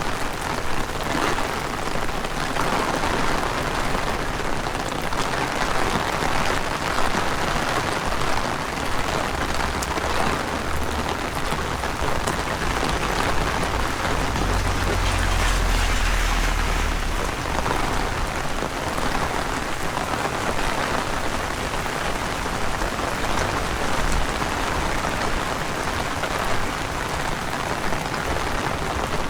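Heavy rain falling steadily, a dense hiss with many separate drops pattering. Partway through, a low rumble swells for a few seconds and then fades.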